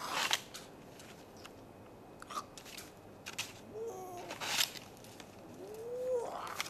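Snow shovel scraping and crunching into snow in short strokes, with brief wordless cries from a person about four seconds in and again near the end.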